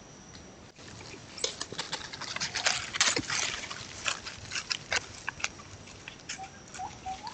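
White-nosed coatis foraging through dry forest leaf litter: a dense run of crackling and rustling, loudest in the middle seconds and thinning out toward the end. A few short whistled bird notes come in near the end.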